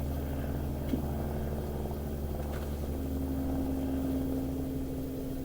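A motor or engine running steadily with a constant low hum. A pitched tone in it grows stronger about three seconds in, and there are two faint knocks.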